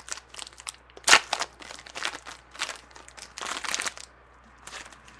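A foil trading-card pack wrapper being torn open and crinkled, in a run of crackly rustles that dies down after about four seconds.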